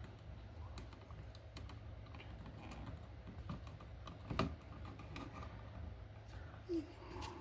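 Scattered small clicks and taps of hand tools working copper wire as a loop is bent in the black wire for a receptacle's terminal screw, with one louder click about halfway through and a short low sound near the end.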